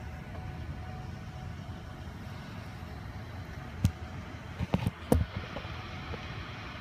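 Steady low rumble of cars driving through a flooded street in a storm, with a handful of sharp knocks about four to five seconds in, the loudest just after five seconds.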